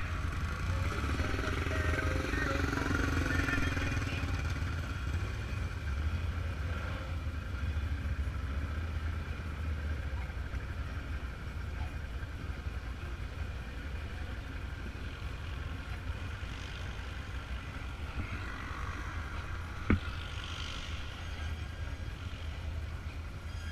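Vehicle running, a steady low rumble of engine and road noise, with a single sharp click about twenty seconds in.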